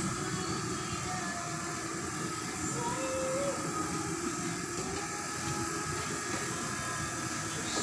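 Steady low rumble and hum of an offshore vessel's machinery, heard inside its mess room.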